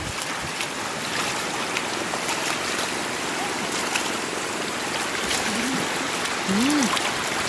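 Shallow floodwater rushing steadily over a road, with small splashes and drips as a wicker basket is worked through the water to scoop up catfish.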